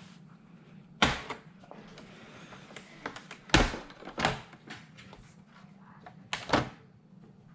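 Sharp plastic clicks and knocks, four loud ones among lighter taps, as the all-in-one computer's plastic base cover is pried free and handled.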